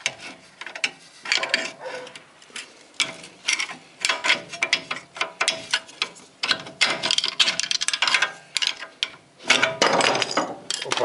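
Metal clicking, knocking and scraping as a VAZ-2109's front brake caliper is levered with a tool and worked off the brake disc and pads. The clatter is busiest near the end.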